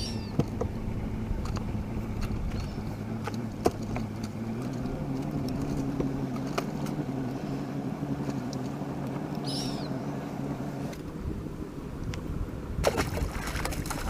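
Boat motor running steadily, its pitch stepping up a little about four to five seconds in, with scattered sharp clicks and knocks.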